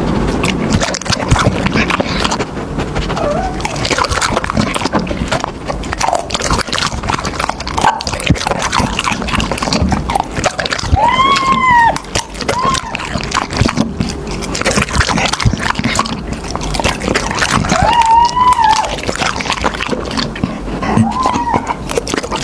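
Dog eating raw chicken heads, wet chewing and crunching with dense crackles and clicks throughout. Two short rising-and-falling pitched calls come about halfway through and again later.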